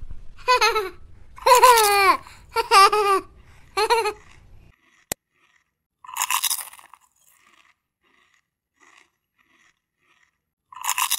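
A high-pitched baby-like voice giving four short cooing calls that fall in pitch, then two short bursts of crunchy munching, one about six seconds in and one near the end, as the doll is fed spaghetti.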